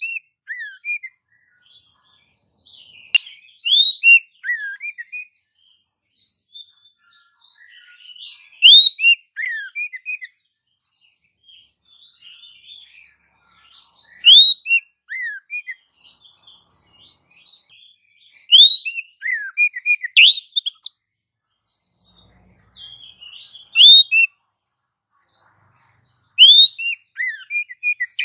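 Bird calls meant as a lure for wild birds: a loud phrase of a sharp rising whistle followed by two or three quick falling notes, repeated about every five seconds, over softer high chirping.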